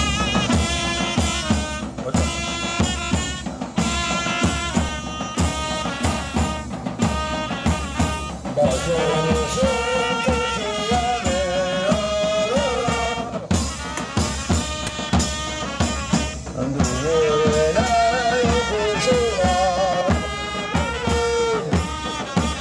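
Ottoman mehter (Janissary) band playing a march: horns carrying a wavering melody over large davul drums beaten in a steady rhythm, with cymbals and small kettle drums.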